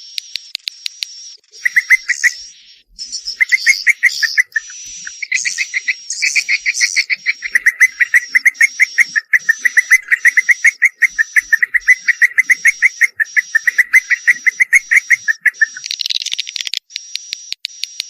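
Swiftlet calls: fast ticking chirps, then long, rapid buzzing trills with a thin, high, steady whistle above them, broken by a few short pauses, giving way to ticking again near the end.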